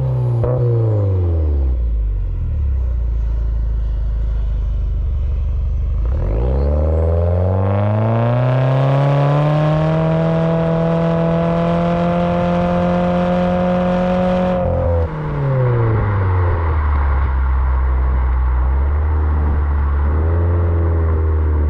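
Subaru Forester XT's turbocharged 2.0-litre boxer four through an aftermarket exhaust. The revs fall back to a low drone, climb smoothly over a few seconds, hold high and steady for about five seconds, then drop back to a low, steady drone.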